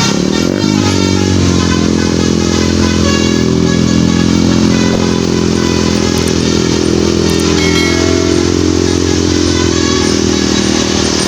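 Large tour bus's diesel engine running as the bus passes, rising in pitch in the first second, then holding a steady drone.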